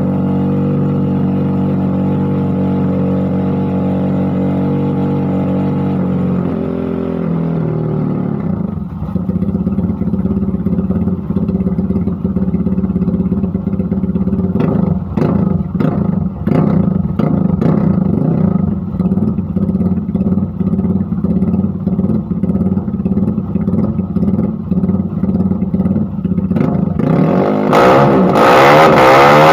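Bored-up Honda CRF150L single-cylinder engine running, held at steady revs and then dropping off after about six seconds. It then runs unevenly with sharp pops and crackles, and is revved hard near the end.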